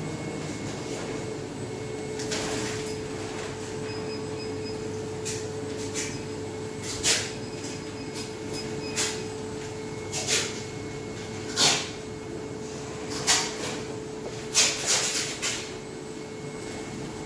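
Large die-cut printed vinyl sticker being peeled and lifted off its sheet by hand, giving repeated short crackling rustles of the vinyl. Under it runs a steady, even machine hum.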